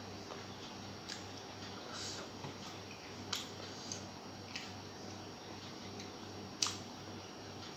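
Eating by hand: scattered small sharp clicks and wet smacks of chewing and of fingers mixing rice and fish curry on a plate, the sharpest about six and a half seconds in, over a low steady hum.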